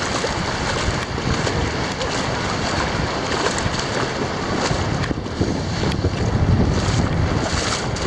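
Wind buffeting the microphone, with the wash of small surf at the shoreline behind it.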